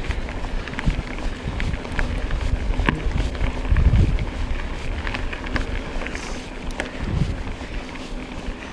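Mountain bike rolling along a dirt trail, with tyre rumble, sharp rattles and clicks from the bike over bumps, and wind buffeting the GoPro's microphone. The wind rumble is loudest about four seconds in.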